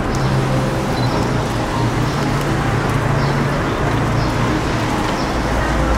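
Steady road traffic noise with a low hum underneath, and a deeper rumble building up near the end.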